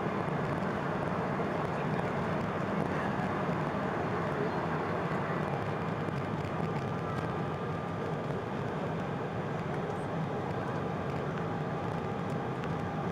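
Embraer 190 airliner's GE CF34 turbofan engines and airflow, heard as a steady roar inside the cabin with a faint steady whine.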